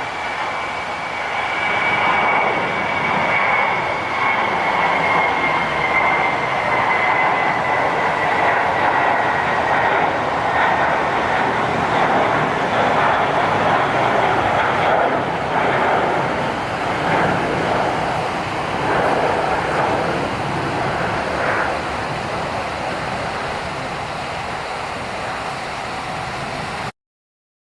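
Jet engines of an HK Express Airbus A320-family airliner passing close by: a steady loud roar with a high whine that slowly falls in pitch over the first ten seconds. The sound cuts off abruptly near the end.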